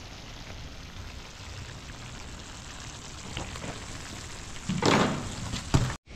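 Chicken, onions and potatoes sizzling steadily in a frying pan, with a brief louder clatter of the spoon in the pan about five seconds in.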